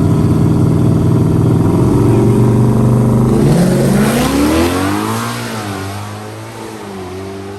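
Car engine running loudly at a steady note, then from about three and a half seconds in its pitch climbs as the car accelerates hard and away, with a couple of dips like gear shifts, the sound fading off toward the end.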